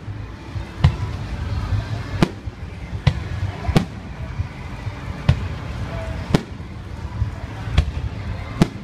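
Aerial firework shells bursting: a string of about eight sharp booms, irregularly spaced a second or so apart, over a steady low rumble.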